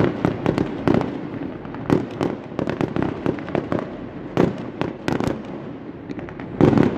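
Fireworks display: aerial shells bursting in an irregular string of booms and sharp cracks, with the loudest cluster of bursts near the end.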